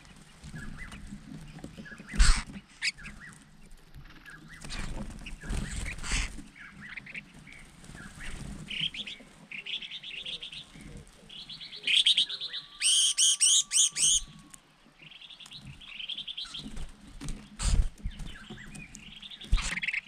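A flock of collared finchbills chirping and chattering while feeding, with a loud run of about six rapid, harsh call notes around the middle. Occasional short thumps and flutters come from the birds moving on the branches.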